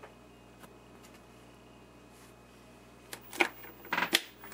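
Faint steady hum, then from about three seconds in a run of sharp crackles and clicks as a vintage tube television is powered up and warms up.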